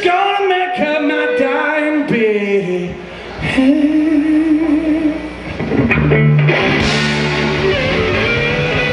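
Live blues-rock band: a man singing lead over electric guitar, with the full band coming in with a steady beat about seven seconds in.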